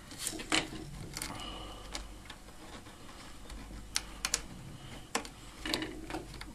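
Light, scattered clicks and taps from hand-handling a steel bicycle brake cable against the plastic door-hinge bracket of a Bosch dishwasher, with a few clustered near the start and again later on.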